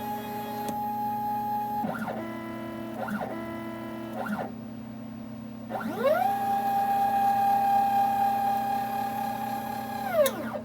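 Stepper motors driving a mini CNC machine's axes on a dry run, each move whining up in pitch, holding a steady tone, then winding back down. There are three short moves between about 2 and 4 seconds, a brief pause, and a long move from about 6 to 10 seconds, all over a steady low hum.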